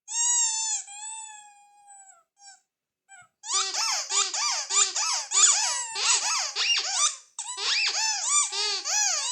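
Ledraplastic rubber squeeze toy squeaking: one long, drawn-out squeak that fades, a pause, then quick repeated squeaks at about two or three a second as it is squeezed over and over.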